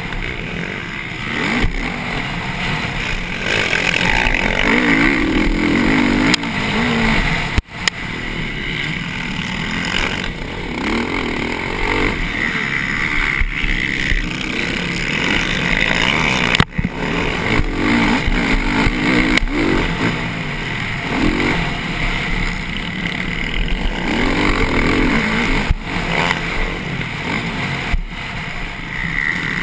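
Onboard sound of a TM motocross bike racing: the engine revs up and down again and again as the rider opens and closes the throttle through the corners and over the crests, with wind rushing over the microphone. The sound cuts out for an instant twice.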